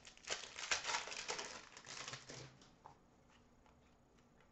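Foil wrapper of a hockey card pack crinkling and tearing as the pack is ripped open, a run of crackles lasting about two and a half seconds.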